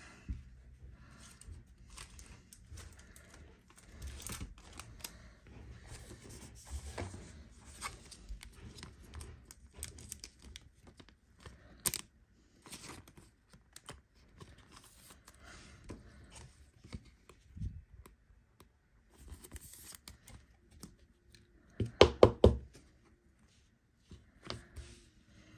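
Hands sleeving a trading card: soft rustling and sliding of thin plastic and card stock, with scattered light clicks and a quick run of sharp taps near the end as the card is settled into a rigid plastic holder.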